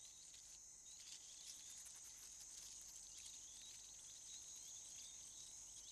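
Faint insect chorus: a steady high-pitched trill with many short chirps repeating over it.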